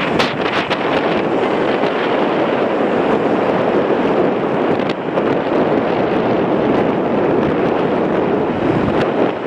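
Steady, loud roar of a twin-engine widebody jet airliner's turbofan engines on the runway, mixed with wind on the microphone.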